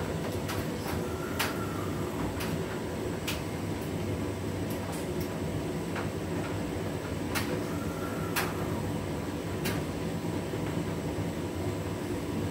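Hotpoint front-loading washing machine in its wash phase, the drum turning and tumbling its load with a steady motor hum. A few sharp clicks or knocks come at irregular moments.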